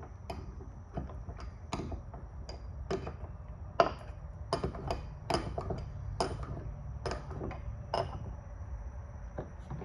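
Irregular sharp metallic knocks and taps on clamp hardware, roughly one or two a second, each with a brief high ring, as the tooling clamps are worked and tightened.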